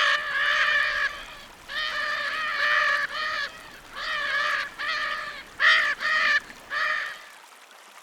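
Lear's (indigo) macaw calling: a run of about ten short, loud calls in quick groups that stop about seven seconds in.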